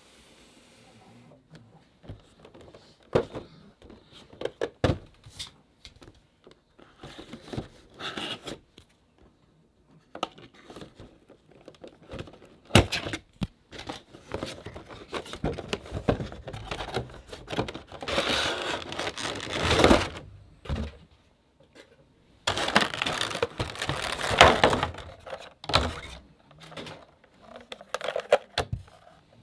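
Cardboard toy box and its plastic packaging being handled and opened: scattered taps and clicks, with two longer stretches of crinkling and rustling past the middle.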